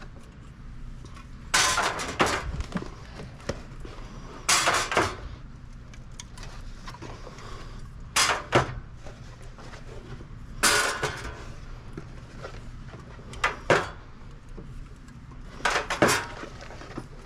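Drinks being loaded into a vending machine's rows: six clattering knocks about every two to three seconds as each drink is set in place, over a low steady hum.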